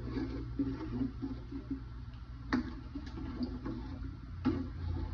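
Vegetable soup of water, carrot and potato chunks stirred in a pot with a plastic spatula, the liquid sloshing, with a few sharp clicks of the spatula against the pot, the loudest about two and a half seconds in and again near four and a half seconds.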